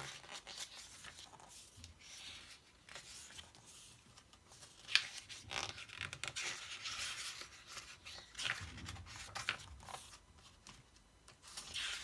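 Paper handling: the pages of a photobook album being turned and rustled, with a few sharper clicks and snaps.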